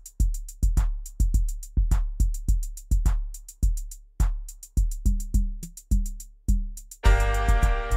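Music: a bare drum beat, with a kick drum about twice a second under quicker hi-hat ticks. A few short low notes join near the end, then the full band comes in about seven seconds in.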